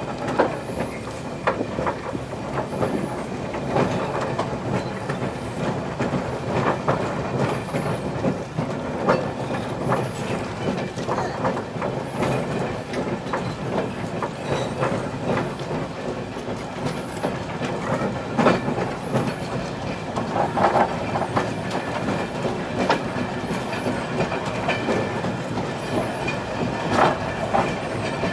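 Train running along the track, its wheels clattering over the rail joints with irregular knocks.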